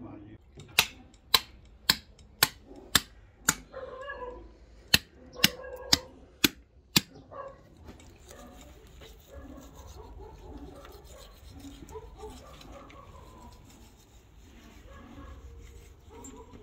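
A run of about a dozen sharp knocks, roughly two a second, in two sets with a short pause between them, followed by faint handling sounds.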